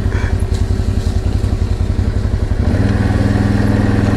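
CFMoto X8 ATV's V-twin engine running at low speed with a pulsing beat, picking up revs about two and a half seconds in and holding there.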